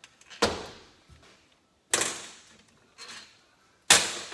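Three sharp metal clanks about a second and a half apart, each with a short ringing tail, the last one the loudest: removed crankcase bolts being set down on a steel bench top.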